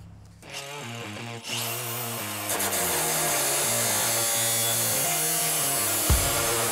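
Milwaukee cordless cut-off tool spinning up to a high-pitched whine about a second and a half in, then running steadily with its abrasive wheel against sheet metal, under background music with a steady beat.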